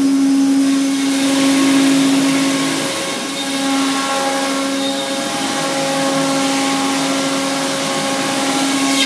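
Omnitech Selexx Pal CNC nested-base router cutting parts out of a sheet panel: a steady spindle whine over a constant rushing hiss, with a brief dip about three seconds in.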